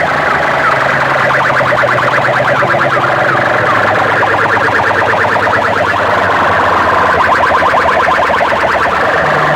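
Loud electronic siren-like effect played through a large DJ sound-box system: fast, repeating warbling chirps over a steady low hum, without a break.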